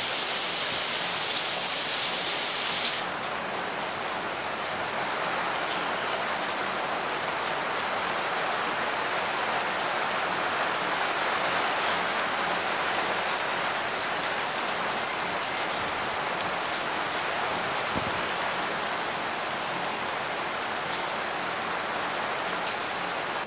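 Very heavy rain falling steadily onto wet concrete rooftops, an even, unbroken rush of noise.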